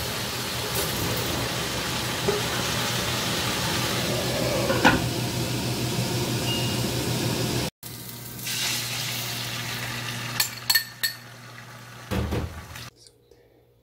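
Chopped vegetables sizzling as they fry in a nonstick pan, a steady hiss that cuts off suddenly about eight seconds in. After that it is quieter, with a few sharp clinks of utensils against the pan and a short knock.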